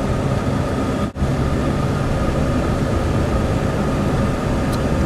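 Steady engine and road noise inside a Jeep Wrangler's cabin while driving, with a brief break in the sound about a second in.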